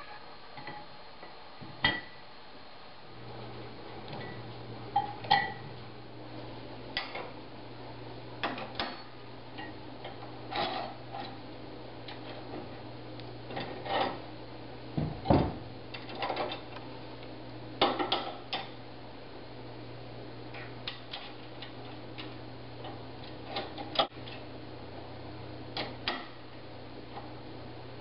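Metal parts of a hand-built scrap-metal drawing machine clinking and knocking as they are handled and the cam on its swing arm is changed by hand. The clicks and knocks are irregular, some with a short metallic ring. A low steady hum runs under them from about three seconds in.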